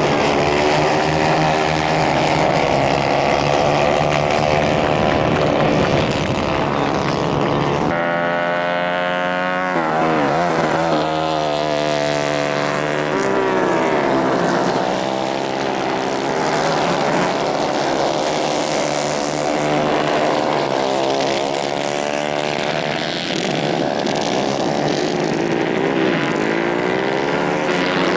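Several 150 cc racing kart engines revving hard and easing off as they lap. Their overlapping whines rise and fall in pitch, with a sudden shift in the engine note about 8 seconds in.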